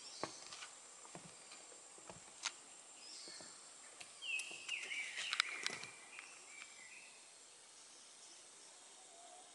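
Pond-side ambience: a thin, steady high insect drone with scattered soft clicks and taps, and a short bird call about four to six seconds in.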